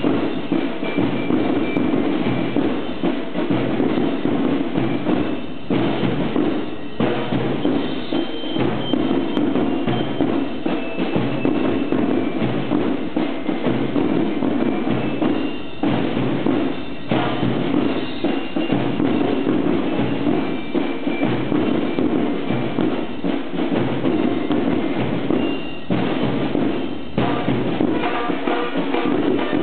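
Marching band rehearsal: drums and percussion play a steady marching beat, with a few short breaks in the pattern.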